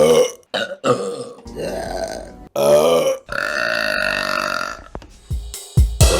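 A run of women's burps one after another, several short ones and then a long drawn-out belch of about a second and a half. Music with heavy low drum hits comes in near the end.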